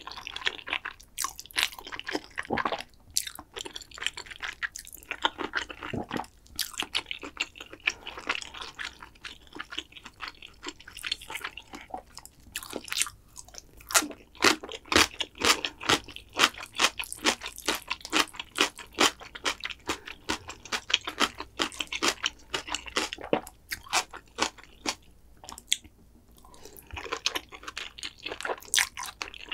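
Close-miked mouth sounds of a person eating black bean noodles (jjajangmyeon): noodles being slurped in, then chewed. Through the middle the chewing turns into loud, crisp crunches at a steady pace.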